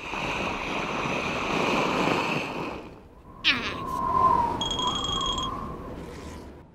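Cartoon water effects: a loud rushing hiss of spray for about three seconds as the larva shoots up out of the puddle, then a quick zipping sweep and the larva's short wordless vocal murmur.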